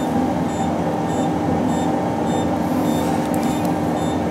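Anaesthesia patient monitor giving a short high pulse beep about once a second over a steady machine hum.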